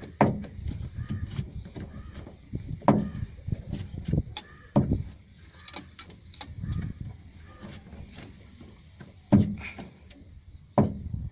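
Hand tools and small metal engine parts being handled and set down: irregular knocks and clinks, about five of them sharper and louder, with rustling between.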